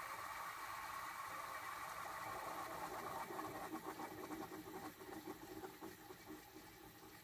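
Refrigerant (R-410A) rushing through a Keystone window air conditioner's coils just after the unit is switched off, as the pressures equalize. A steady hiss is joined by a fluttering, liquid rush about three seconds in, and the sound fades over the last few seconds.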